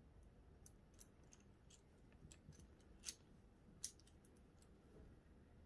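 Faint small metallic clicks as a coax cable connector is handled and checked, with two sharper ticks about three and four seconds in, over a quiet room.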